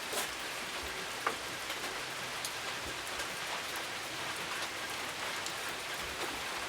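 Steady hiss of light rain falling, with a few sharp ticks of single drops.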